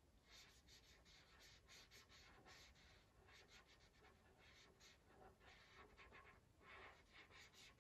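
Faint scratching of a marker colouring in on paper, in short, quick back-and-forth strokes.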